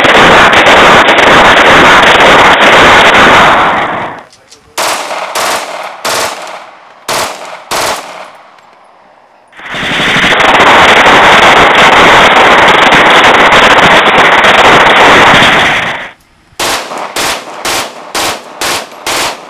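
Glock 18 machine pistol firing full-auto in two long strings of rapid fire, so dense that the shots run together. Each string is followed by a run of separate single shots, about three a second.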